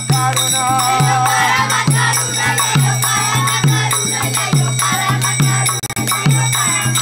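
Devotional group music: a drum beating about once a second under singing voices and a rattling percussion instrument, with steady metallic ringing above.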